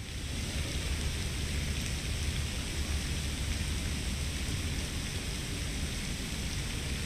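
Steady outdoor ambience: an even hiss over a constant low rumble, with no distinct events.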